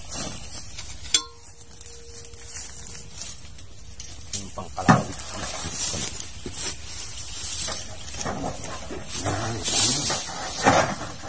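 Rustling and scraping of grass and dry debris being searched through by hand, with scattered knocks. A sharp knock about a second in is followed by a faint steady tone for about three seconds, and the rustling grows denser near the end.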